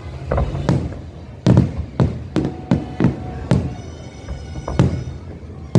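Fireworks going off in a rapid, irregular series of bangs, about a dozen in all, each with a low rumbling tail. Music plays underneath, with steady tones in the middle of the stretch.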